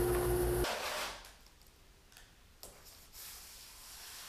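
Bandsaw running with a steady hum, cut off abruptly under a second in. Then a faint, quiet shop with a few light taps of handling.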